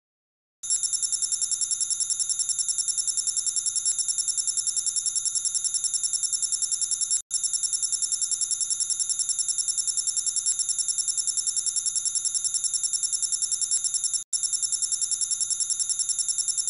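Rapid, high-pitched electronic ringing like a telephone bell, steady and looped, breaking off for an instant about every seven seconds.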